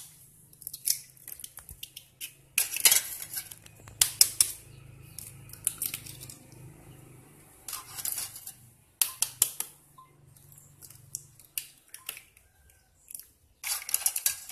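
Eggs being cracked and shells handled: clusters of sharp taps and clicks of eggshell against bowls every second or two, over a faint low hum that fades out near the end.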